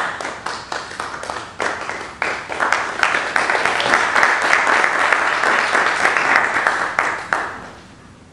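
Small audience applauding: scattered separate claps at first, building into full, dense applause about three seconds in, which dies away near the end.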